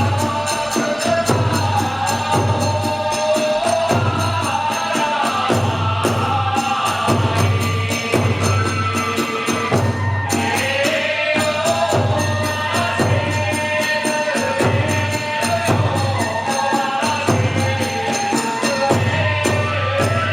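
Kagura hayashi music: a large drum beating about once a second, with small hand cymbals clashing and a high melody line running over it.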